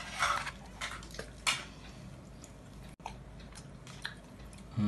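Eating sounds: a metal spoon scooping rice in a plastic takeaway tray, with a few short scrapes in the first second and a half and lighter clicks after. A short low thud comes at the very end.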